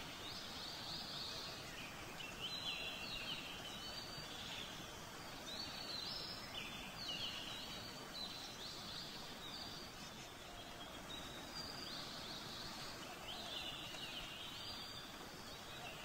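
Birds chirping in short, repeated calls over a steady background hiss, with a brief lull about ten seconds in.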